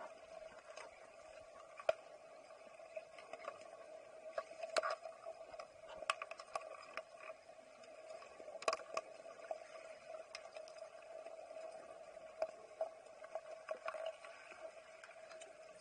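Underwater hockey sticks and puck knocking on the tiled pool floor, heard underwater as scattered sharp clicks over a steady hum.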